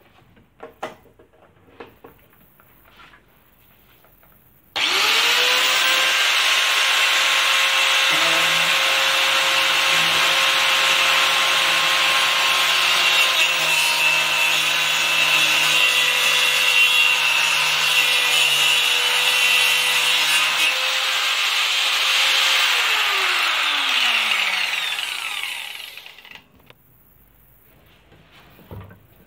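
Angle grinder converted into a saw cutter, with a toothed circular wood blade, switched on suddenly about five seconds in. It runs at a steady high whine while sawing through a wooden plank. Near the end it is switched off and winds down with a falling pitch.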